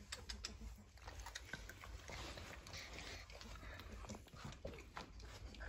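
Faint puppy sounds: soft snuffling with scattered small clicks and a few brief squeaks.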